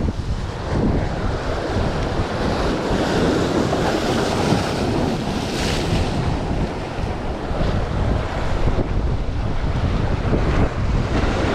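Wind buffeting the microphone, a heavy uneven rumble, over the steady wash of waves.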